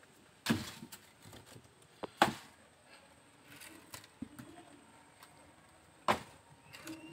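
Loose bricks and stones being shifted by hand, with three loud knocks about half a second, two seconds and six seconds in, and a few small clicks between them.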